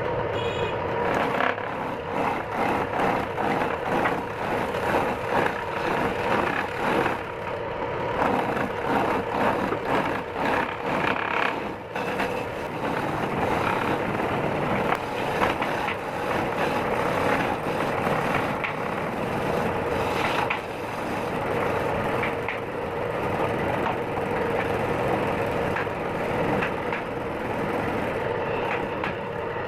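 Wood lathe motor running with a steady hum while a turning tool scrapes and rubs against the spinning wood.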